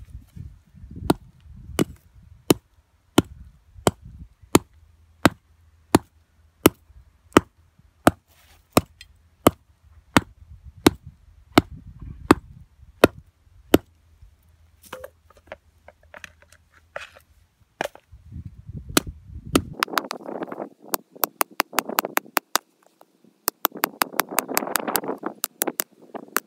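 Hand tool chopping into the roots of a juniper stump: sharp, evenly paced blows, about three every two seconds, turning into quicker, rougher strokes near the end.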